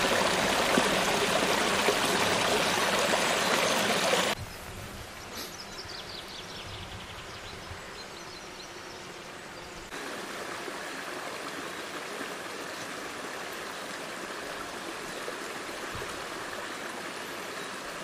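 Shallow forest creek flowing, loud and close for about the first four seconds. It then drops suddenly to a quieter, steady rush of water.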